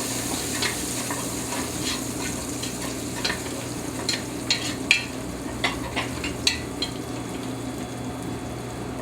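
Diced bacon sizzling as it renders in a pot, with a utensil stirring and knocking against the pot every so often.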